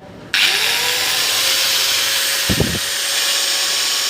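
Electric hand grinder switched on: its motor spins up with a rising whine, then runs steadily at full speed. A brief low knocking sounds about two and a half seconds in.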